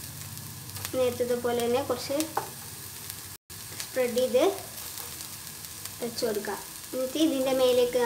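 A wooden spatula stirring chopped onions and green chillies frying in oil in a ceramic-coated frying pan, scraping the pan in several strokes that give pitched, sweeping squeaks over a light sizzle.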